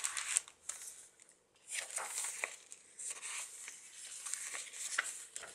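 Paper rustling and crinkling in several bursts as the pages and paper-bag insert of a handmade junk journal are handled and turned, with a few small clicks.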